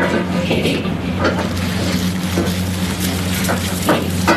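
Aluminium foil crinkling in short crackles as a roll is wrapped and rolled tight on a steel counter, over a steady low hum.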